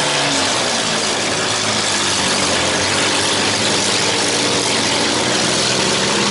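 Engines of several compact demolition-derby cars running and revving at once: a loud, steady din of motors.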